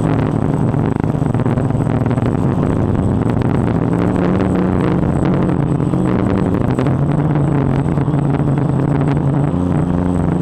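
DJI Phantom quadcopter's motors and propellers buzzing close to the onboard camera, a low multi-toned hum that drifts up and down in pitch as the throttle changes, with a thin steady high whine and air rushing over the microphone.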